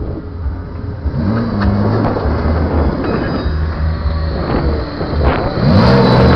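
BMW drift car's engine running at idle and being revved: the pitch rises and falls about a second in, and the revs climb again, louder, near the end.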